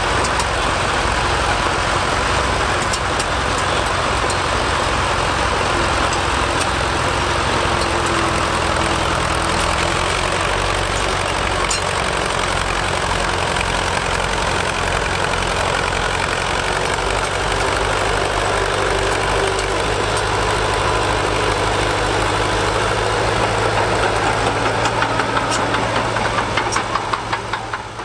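Fordson County crawler bulldozer's engine running steadily as the machine pushes soil with its blade; its firing beats grow louder near the end before the sound fades out.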